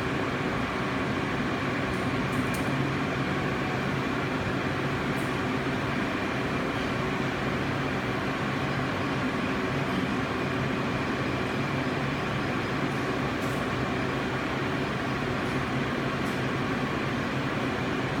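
A 43S+ continuous inkjet coding printer running through its start-up sequence: a steady mechanical hum, with a few faint high ticks now and then.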